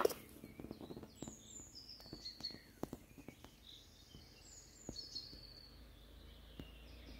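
Small songbirds singing faintly: a few short, high phrases that fall in pitch and end in a quick trill, with a few soft clicks in between.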